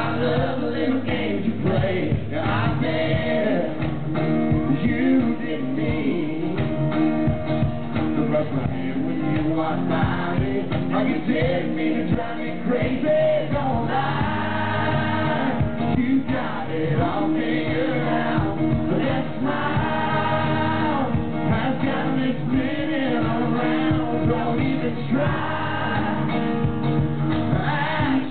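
Live country song: two men singing with acoustic guitars strumming, the voices holding several long notes.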